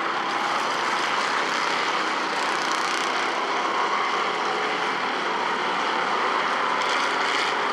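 Engines of a pack of Bomber-class stock cars running together on a short oval track, a steady, even drone with no single car or event standing out.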